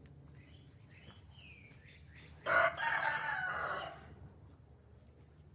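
A rooster crowing once, a single crow of about a second and a half, with small birds chirping faintly before it.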